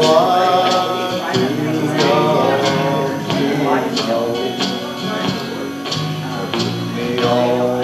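A man singing a country song over instrumental accompaniment with a steady beat.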